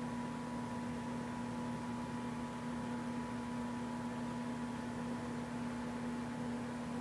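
Steady hum with a constant pitch and a faint higher whine, over an even hiss; nothing changes throughout.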